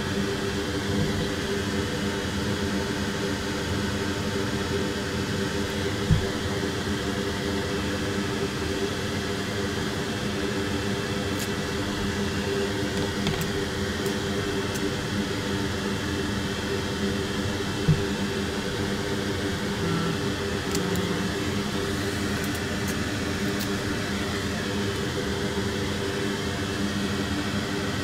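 Steady whir of a fan-like machine with a low hum, broken by two short low thumps, about six seconds in and again about twelve seconds later.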